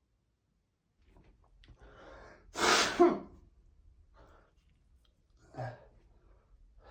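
A person blowing their nose hard: one forceful, noisy blast about two and a half seconds in, lasting under a second. A shorter, fainter burst follows near the end.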